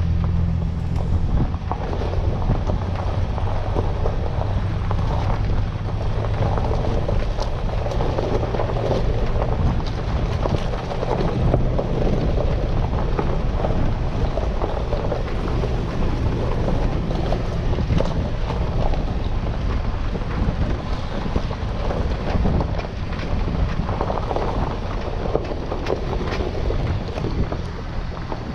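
A vehicle driving on a gravel road: a steady low engine and road hum, with frequent small clicks from the gravel under the tyres and wind buffeting the microphone.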